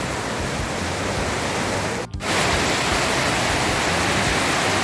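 Mountain stream rushing over boulders: a steady rush of whitewater, broken by a brief drop-out about two seconds in, after which it is a little louder.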